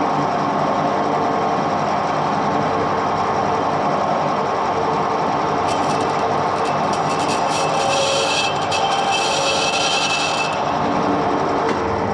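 Edgwick metal lathe running steadily with its gear whine; from about six seconds in, for roughly four seconds, a higher hissing screech is added as the cutting tool takes a cut on the spinning metal workpiece.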